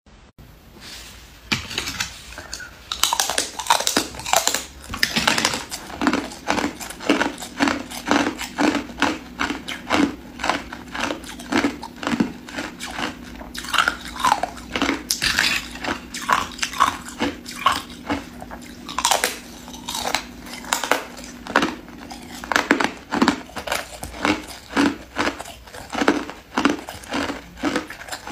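A person biting and chewing hard clear ice close to a clip-on microphone: a steady run of sharp crunches, about two a second.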